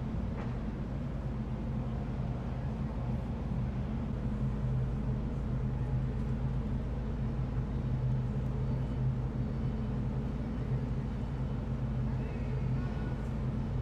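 Low, steady drone of ship engines working as a large vessel manoeuvres alongside a berth, with a constant low hum and hiss over it.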